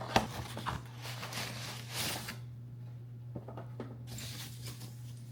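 Packaging rustling and tearing as a new steering wheel is unwrapped, with a sharp click just after the start and another a moment later. A steady low hum runs underneath.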